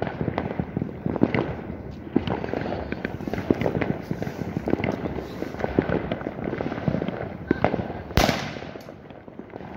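New Year fireworks and firecrackers going off close by in a dense, continuous run of bangs and crackles, with one especially loud bang about eight seconds in.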